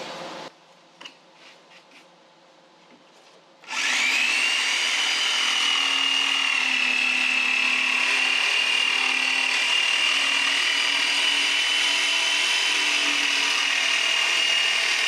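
A few light handling clicks, then an electric jigsaw starts about four seconds in, its whine coming up quickly, and runs steadily as it cuts through wood, cutting out an opening for a seat plate between drilled holes.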